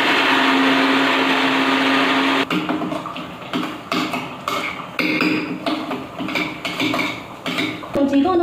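Electric mixer grinder with a steel jar running steadily as it grinds mango and mint into chutney, then cutting off about two and a half seconds in. After that come short knocks and scrapes of a spoon working the paste in the steel jar.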